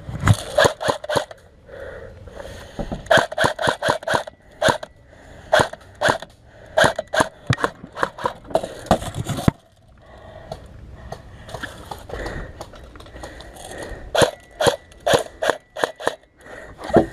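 Sharp clicks and snaps in quick uneven clusters, several a second, with a short lull about ten seconds in: airsoft guns firing during a skirmish, mixed with movement through dry brush.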